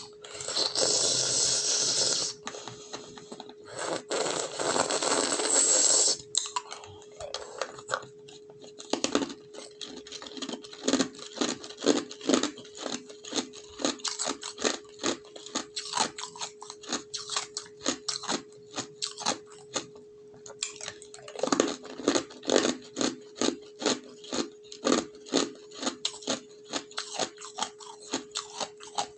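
Ice being crunched and chewed close to the microphone. It opens with two longer, loud stretches of crunching noise, then goes on as sharp crunches about two or three times a second.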